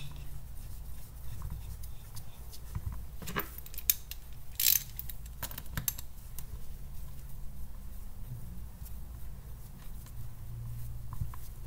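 Scattered light metal clicks and clinks of bolts being fitted and threaded by hand into an ATI Super Damper harmonic balancer, with a brief louder rasp about halfway through, over a low steady hum.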